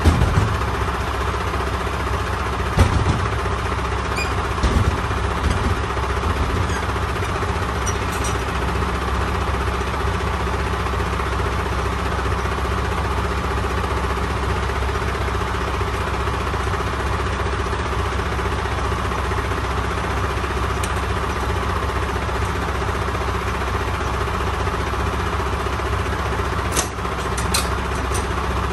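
Semi truck's diesel engine running steadily, with a couple of short knocks in the first five seconds and a few faint clicks near the end.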